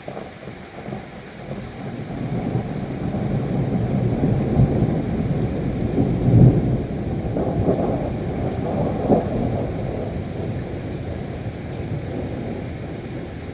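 A long roll of thunder over steady rain: it comes in suddenly, builds to its loudest a little before halfway, crackles a few times, then rumbles slowly away.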